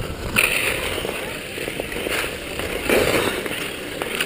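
Ice skate blades scraping and gliding over snow-covered ice, in several separate strokes.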